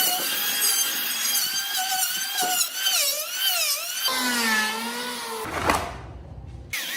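A small high-speed power tool whining, its pitch wavering up and down as it bites into the work, then a lower-pitched motor whine that slowly drops in pitch.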